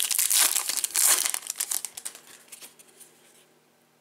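Plastic wrapper of a 2020 Topps Gallery baseball card pack crinkling as it is opened by hand. The crinkling dies away about three seconds in.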